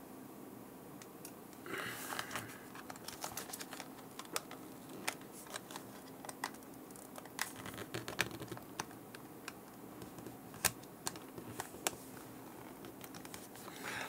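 Fingernails prying at the seam of a Garmin nüvi GPS's plastic case: a run of small, irregular plastic clicks and scratches, with a longer scrape about two seconds in.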